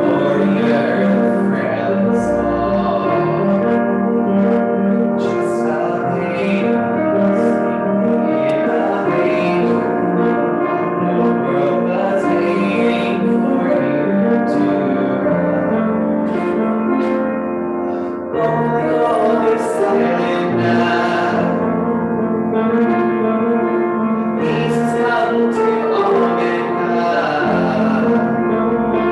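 A man singing to his own piano accompaniment on a keyboard, the song running on without a break.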